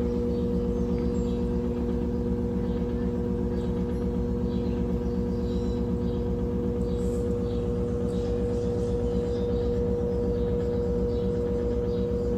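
Brastemp Tira Manchas Advanced 17 kg washing machine spinning a duvet load: a steady motor whine in several held tones over a fast, even low rumble. The drum holds one spin speed, which the owner thinks is the highest it reaches with a duvet.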